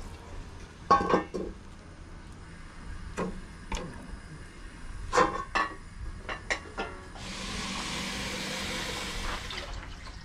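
Enamel bowls and a metal pot knocking and clinking several times, then about two seconds of rushing water, as from water poured or run from a tap.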